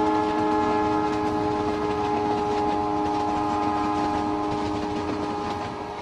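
Locomotive horn sounding one long steady chord, fading near the end.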